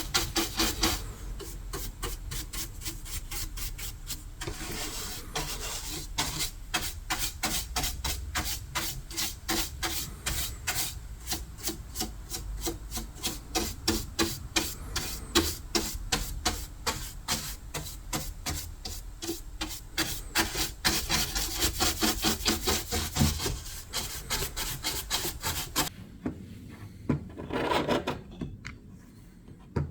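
Hand stripping of old paint and finish from wood: quick, even back-and-forth rubbing strokes of a sanding or scraping tool. The strokes thin out and mostly stop near the end, apart from one short burst.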